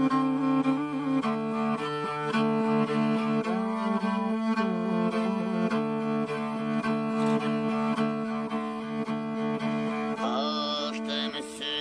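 Background music: bowed strings hold long, steady drone notes with a melody over them. About ten seconds in, the low drone drops away and a high part with gliding pitches comes in.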